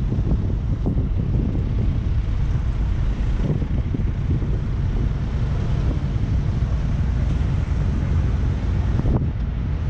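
Dump trucks' diesel engines running steadily as their raised beds tip soil, with wind buffeting the microphone.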